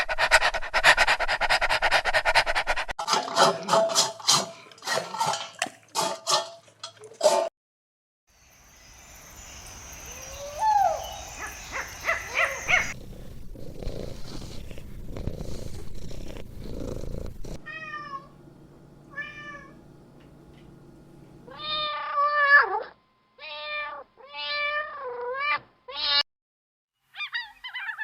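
Cat sounds: rapid steady purring-like pulses at first, then, after a short break, a single gliding cry, and a series of short meows near the end.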